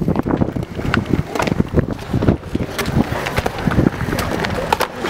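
Skateboard fitted with a chainsaw bar and chain rolling over concrete: a steady rumble of the wheels with many irregular clacks and rattles, and wind buffeting the microphone.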